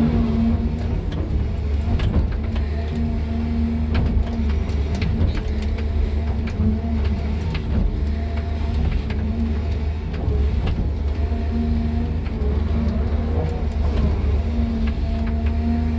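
Excavator's diesel engine running steadily, heard from inside the cab, with shifting hydraulic tones and scattered clicks and knocks.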